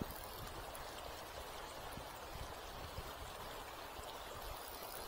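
River current rushing steadily past, an even water noise without a break, with one short click at the very start.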